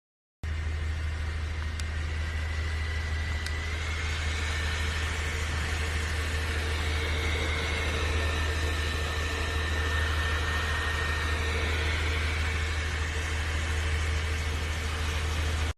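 Jisulife neck fan running steadily: a thin, high motor whine over a heavy low rumble of air rushing past the microphone. The whine's pitch shifts slightly a few times.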